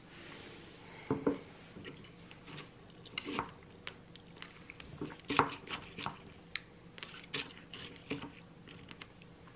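Wooden spoon stirring crunchy granola into Greek yogurt in a glass bowl: irregular crunching and light knocks of the spoon against the glass, a dozen or so, the loudest about a second in and around five seconds in.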